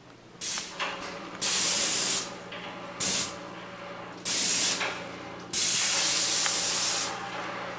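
Airless paint sprayer's gun spraying in short bursts of hiss as the trigger is pulled and let go: five bursts, the longest about a second and a half. A low steady hum runs underneath.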